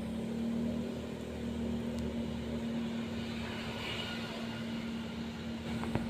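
Steady drone of an engine running at an even speed, holding one low pitch.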